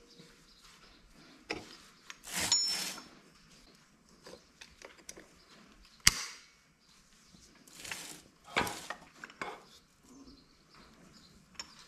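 Metal hand tools clinking and scraping against a broken bolt in short, irregular bursts, with a few sharp metallic clicks.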